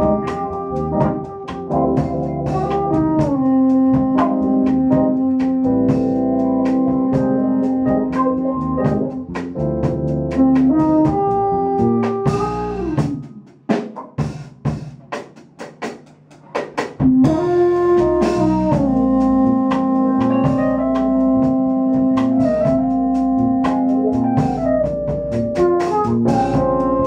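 Live jazz-funk band playing: sustained keyboard chords change every few seconds over a drum kit. About halfway the chords drop out for a few seconds of mostly drum hits, then the full band comes back in.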